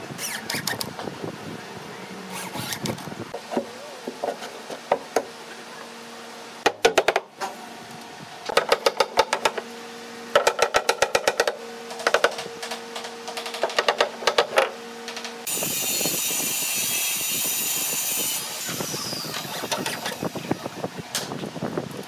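A hammer driving nails into a plywood cabinet in quick runs of sharp blows, five bursts in a row, over a faint steady hum. A steady hiss follows for about three seconds.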